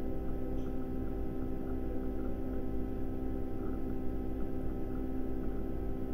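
Steady electrical hum made up of several fixed tones, with no change in pitch or level, typical of mains hum picked up in a recording chain.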